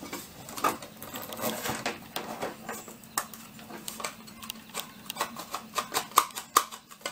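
Irregular clicks, taps and scrapes of a Heathkit grid dip meter's chassis being worked by hand out of its case, with a run of sharper clicks near the end.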